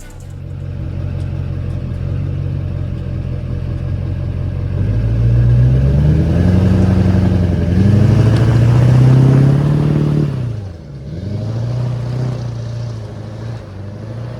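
Car engine running, then revving up and down for several seconds; about three-quarters of the way through the revs drop sharply and pick back up before it settles to a steadier note.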